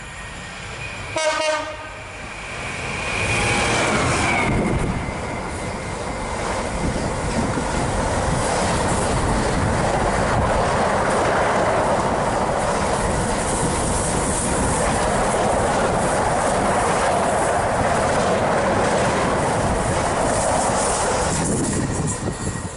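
Freight train passing through a station at speed: a brief horn blast from the approaching locomotive about a second in, then the locomotive goes by with a tone falling in pitch. After that a long rake of covered car-carrier wagons rumbles and clatters past for about fifteen seconds, and the sound drops away near the end as the last wagon passes.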